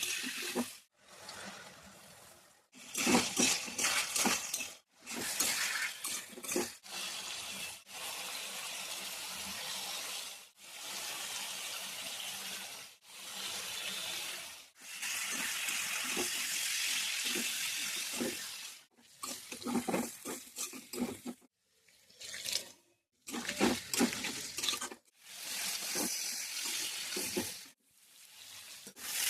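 Kitchen sounds in a string of short clips, each starting and stopping abruptly: steady running water from a tap in several clips, and utensils clattering against a pot in others.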